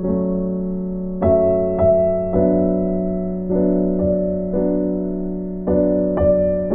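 Background piano music: slow, gentle notes and chords that ring and fade over a held low note.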